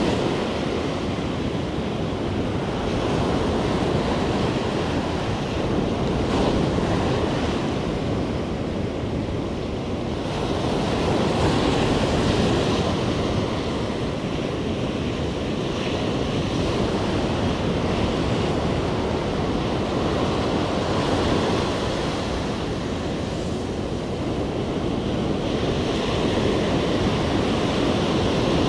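Ocean surf breaking on the shore, a steady wash that swells and eases every few seconds as each wave comes in.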